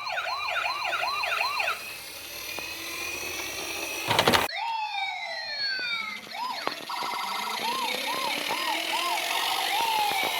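Several toy ambulance and police car sirens sounding at once, overlapping electronic wails and fast yelps that rise and fall about three times a second. A brief loud burst of noise cuts across them about four seconds in.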